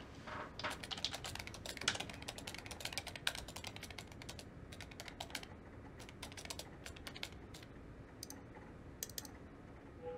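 Typing on a computer keyboard: a quick, dense run of key clicks for the first several seconds, then sparser, scattered keystrokes.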